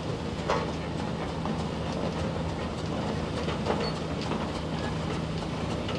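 Large steam traction engine running as it drives slowly along a gravel road: a steady low rumble, with a couple of sharp clanks about half a second in and near the end of the fourth second.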